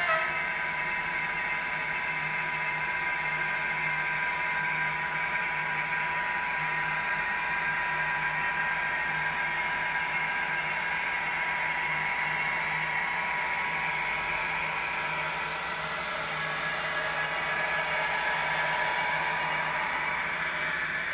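HO-scale model train, an SBB Re 460 electric locomotive with passenger coaches, running past on the track: a steady whirring of motor and wheels with a thin steady tone.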